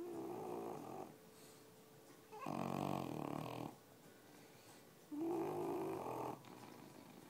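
English Bulldog snoring in its sleep: three snores, each a little over a second long, coming about every two and a half seconds. This kind of snoring is typical of the breed's short, flat-faced airway.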